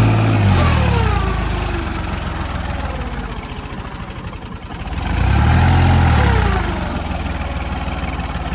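Diesel engine of a New Holland 35 hp tractor running while it pulls a nine-tine cultivator through the soil. The engine note swells and falls back twice, once at the start and again about five seconds in, with a steady running note between.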